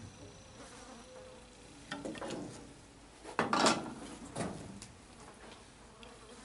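A fly buzzing around the microphone, coming close and loudest about three and a half seconds in, with shorter passes around two seconds in and just after four seconds.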